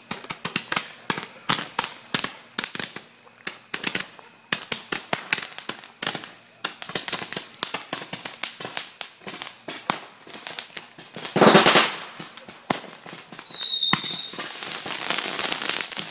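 Consumer fireworks going off at close range: a rapid, uneven string of sharp pops and bangs, several a second. About eleven seconds in comes a loud rushing hiss, near fourteen seconds a brief high whistle, and then a steady crackling hiss.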